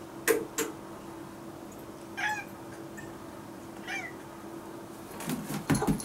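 Two short meows from an orange-and-white cat, about two seconds apart, over a steady low hum. Two sharp clicks come just before, and a few heavy thuds near the end as the cat jumps down onto the tatami floor.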